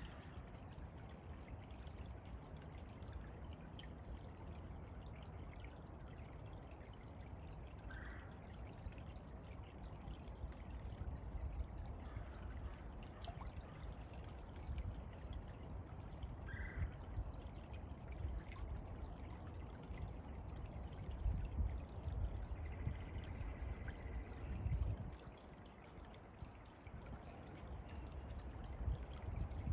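Shallow brook trickling steadily over a gravel bed. Two brief high chirps come about a third and two thirds of the way through, and low rumbling swells come and go near the end.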